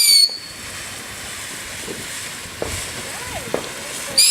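Whistling fireworks: a shrill, slightly falling whistle cuts off just after the start, then a steady crackling hiss with a couple of sharp pops, and another shrill whistle starts near the end.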